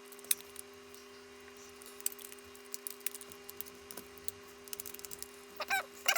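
Scattered light clicks and taps from a plastic game controller being handled during reassembly, over a steady low hum. There are a few short pitched squeaks near the end.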